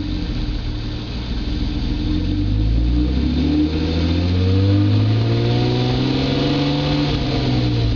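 Stock exhaust of a BMW E34 525ix's 2.5-litre straight-six being revved. The revs dip at first, then climb slowly and hold for a few seconds before easing back near the end.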